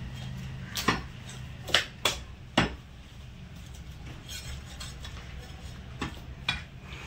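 Butcher's cleaver chopping goat meat and bone on a wooden log chopping block: four sharp chops in the first three seconds, then two more about six seconds in, over a steady low hum.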